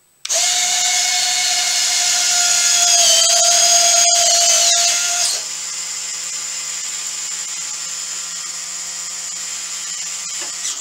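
Landing-gear retract units of a 1/12-scale RC Fairchild C-119G model extending the gear, their small motors giving a steady mechanical whine like a drill. It starts suddenly, drops in level a little past halfway, and cuts off abruptly as the gear reaches its stops.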